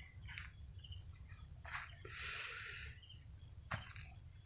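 Faint birds and insects calling: a short high chirp repeating about twice a second, with a sharper call cutting in now and then, over a low rumble. A brief hiss comes about two seconds in.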